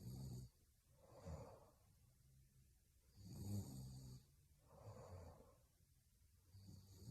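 A young woman snoring in her sleep: a low snore about every three and a half seconds, three in all, each followed by a softer breath out.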